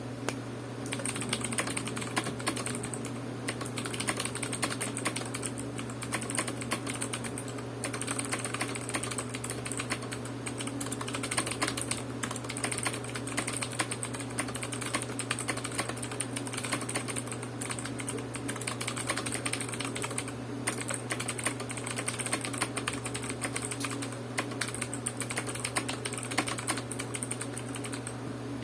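Continuous fast typing on a Royal Kludge RK71 mechanical keyboard with stock RK blue switches: a dense stream of sharp key clicks, broken by a few short pauses. A steady low hum sits underneath.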